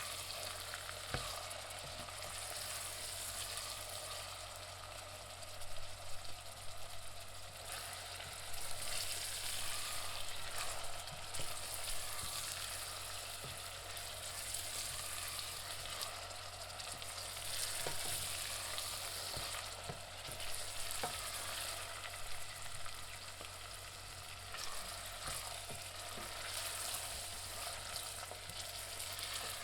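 Onions frying in a pan, a steady sizzle with crackles and pops, swelling and easing every few seconds as they are stirred.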